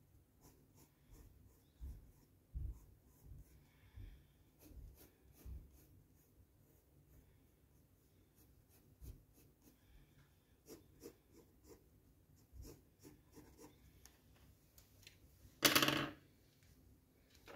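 Green Crayola coloured pencil scratching faintly on drawing paper in short shading strokes, with a few soft knocks. About sixteen seconds in there is a brief, louder clatter as pencils on the desk are handled.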